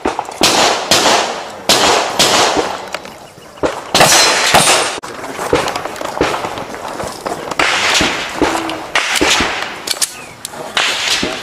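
Handgun shots fired in rapid strings, each a sharp crack with a trailing echo, roughly one every half second to second, with a short pause near the middle.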